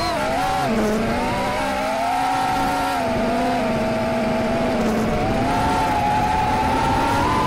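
Armattan Rooster 5-inch FPV quadcopter in flight, its four Armattan Oomph Titan 2306 brushless motors and props heard on board: a steady multi-pitched whine that dips about a second in and climbs near the end as the throttle rises. A loose Crossfire receiver part is slapping against one prop throughout.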